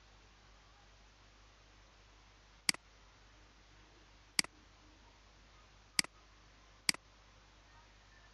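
Computer mouse button clicked four times, each press followed by a quieter release click, closing windows on the desktop. A faint steady hiss runs underneath.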